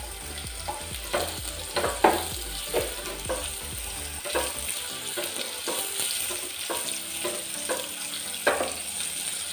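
Chopped pumpkin frying in hot oil in a non-stick kadhai, with a steady sizzle, while a spatula stirs it in repeated scraping strokes against the pan.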